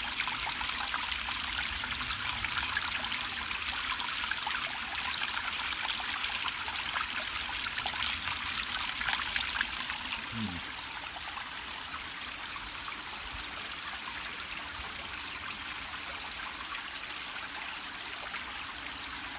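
Shallow water running down a stone channel and splashing over a step, a steady trickling with small splashes. It grows fainter and steadier about halfway through.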